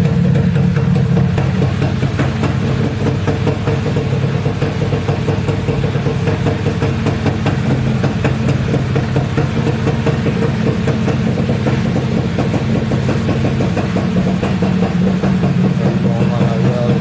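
Modenas Dinamik 120 motorcycle engine idling steadily while it is warmed up after standing unused for a long time.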